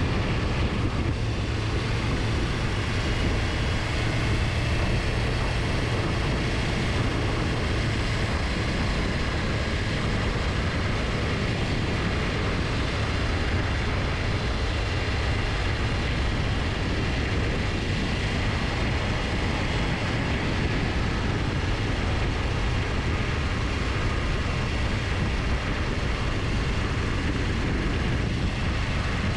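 Steady rush of wind and road noise on a moving motorcycle, with a constant low rumble underneath and no changes in pace.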